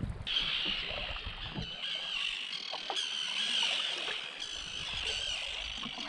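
A steady, dense chorus of high-pitched chirping calls, with a few soft water drips and splashes from the canoe paddling.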